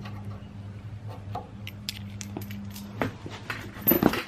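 Small metal clicks and clinks of motorcycle fuel-tank mounting bolts and washers being taken out and handled, with a cluster of louder clicks near the end, over a steady low hum.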